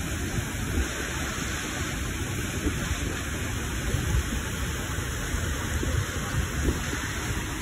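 Steady rushing roar of a waterfall plunging through a narrow rock canyon, with a low, uneven rumble underneath.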